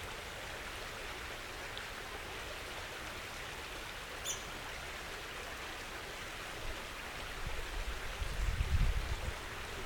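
Steady hiss of flowing creek water. A short high chirp sounds once about four seconds in, and low rumbles on the microphone come in near the end, louder than the water.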